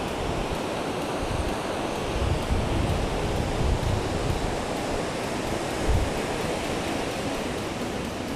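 Ocean surf breaking on a beach: a steady rushing wash of waves, with irregular low rumbles of wind on the microphone.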